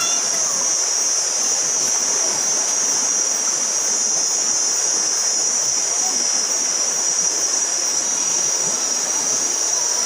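Shallow river running over rocks, a steady rushing wash, with a loud, unbroken high-pitched buzz running over it.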